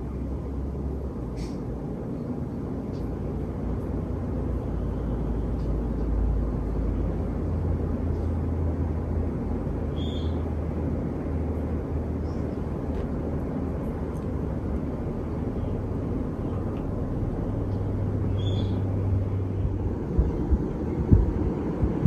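Casablanca Halogen Star ceiling fan running with five blades: a steady low motor hum under the whoosh of air moving off the blades. A few sharp knocks come near the end.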